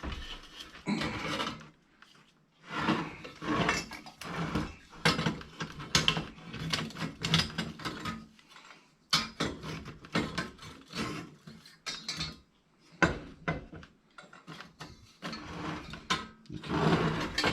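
Metal parts of a Coleman 220F lantern being worked loose by hand: irregular scraping, clicking and rattling as the pieces are wiggled and turned, with a few short pauses.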